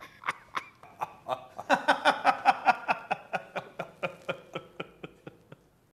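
A man laughing heartily, a long run of rhythmic "ha" pulses about four a second, loudest about two seconds in and fading out toward the end.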